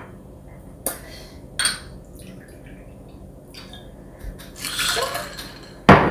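Soju poured from a shot glass into a glass goblet, a short splashing pour that rises in pitch as it goes, with a few small glass clicks before it. A loud sharp knock near the end as the glass soju bottle is set down on the table.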